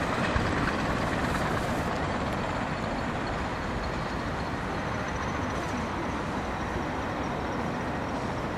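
Heritage passenger train, hauled by Metropolitan Railway electric locomotive No. 12 'Sarah Siddons', running along the track with a steady rumble that slowly fades as it moves away.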